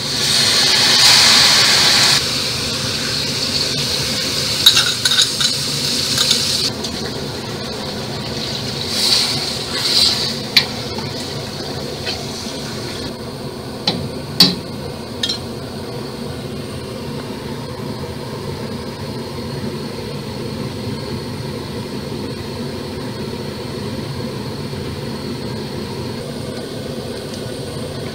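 Kimchi tipped and scraped out of a steel bowl into a stainless steel pot with a rush of noise, followed by scattered scrapes and sharp clinks of a utensil against the metal pot and bowl while ingredients are added, over a steady mechanical hum.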